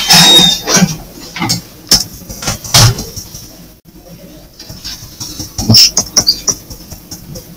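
Scattered sharp clicks and knocks at irregular moments, a cluster near the start, single strokes around two and three seconds in and another cluster around six seconds in, with quieter gaps between.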